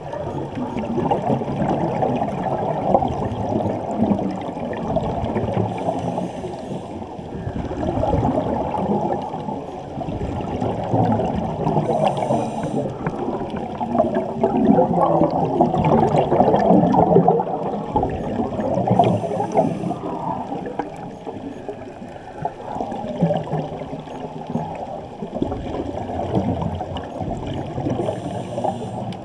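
Muffled underwater sound heard through a camera's waterproof housing: water sloshing and gurgling, with crackling bubbles. It swells louder for a few seconds at a time.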